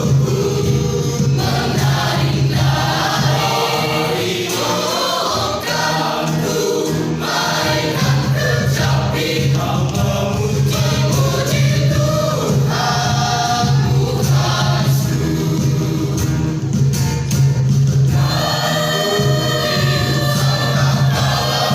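Church youth choir singing a gospel piece in several voice parts together, over a steady low drone.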